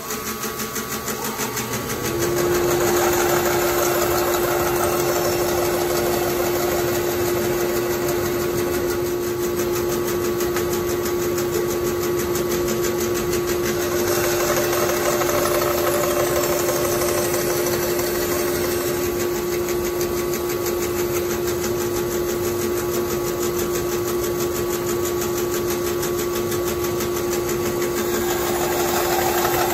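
Rikon 14-inch bandsaw running steadily while a mahogany blank is fed through its blade in an angled jig. A steady hum joins about two seconds in and holds throughout.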